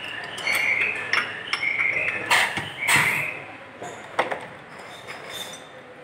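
Glass bottle capping machine at work: short high-pitched squeaks from the capping head about once a second, mixed with sharp clinks of glass bottles. The loudest clinks come about two and a half and three seconds in, and it quiets in the second half.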